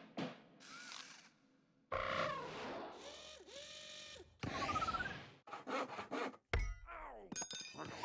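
Cartoon mechanical sound effects of unseen tinkering behind the THX logo: creaking and whirring, a short rising squeak about halfway through, then a quick run of clicks and rattles with a dull thump.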